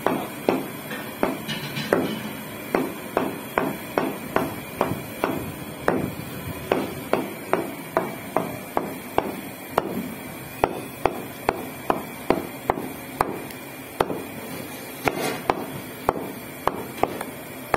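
Meat cleaver chopping goat meat into small pieces on a round wooden chopping block, in steady strokes about two to three a second.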